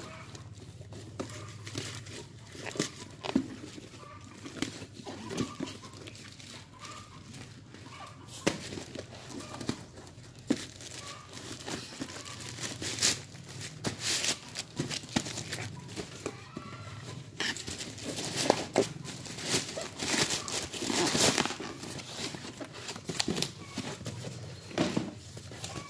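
Plastic mailer bag crinkling and tearing as it is pulled open off a cardboard box. Irregular crackles and rips, denser and louder in the second half, with the box bumped as it is handled.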